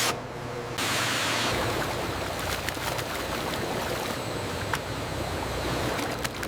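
Hot oil in an industrial deep fryer sizzling steadily with scattered crackling pops as chicken fries. The sizzle starts abruptly about a second in.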